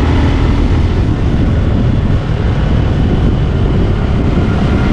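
Motorcycle riding at speed: steady wind rush on the rider's microphone over the bike's engine and road noise.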